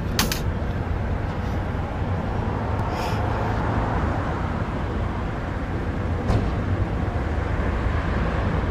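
Steady background rumble and hiss, strongest at the low end, with a couple of sharp clicks just after the start.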